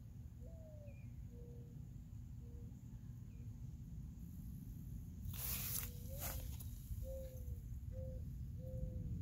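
Outdoor ambience with a steady low rumble of wind or handling noise on the microphone. Short, low bird calls recur throughout. About five and a half seconds in there is a brief burst of rustling, then a shorter one just after.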